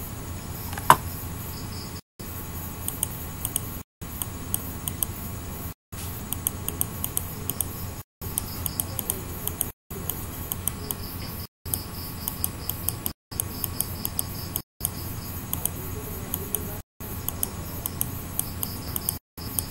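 Computer mouse clicking in quick runs of small ticks, typical of a scroll wheel turning, over a low steady hum. The sound drops out to silence briefly about every two seconds.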